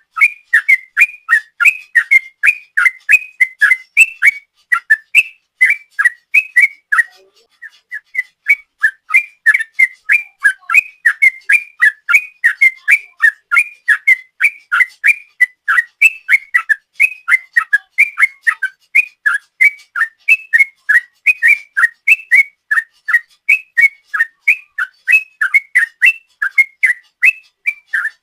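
Yellow-vented bulbul (trucuk) singing a long rapid-fire 'ropel' string of short whistled notes, about three to four a second, with a short break about seven seconds in.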